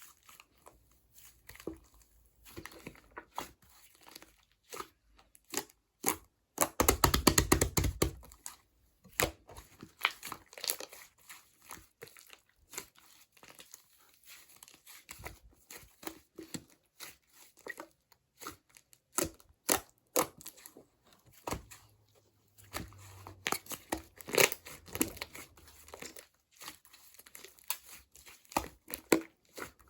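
Slime being squeezed, poked and stretched by hand, giving a run of sticky crackling and popping clicks, with a dense, louder burst of crackling about seven seconds in.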